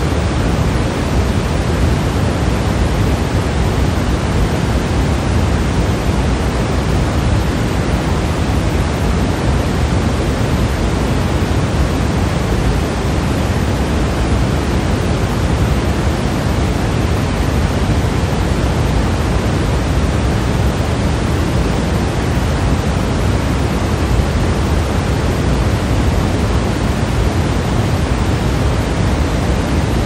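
Steady pink noise: an even, unchanging hiss weighted toward the low end, with no variation.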